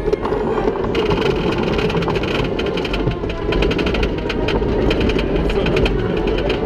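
Wooden roller coaster train climbing a chain lift hill: a steady mechanical drone of the lift chain, with rapid clicking from the anti-rollback dogs starting about a second in.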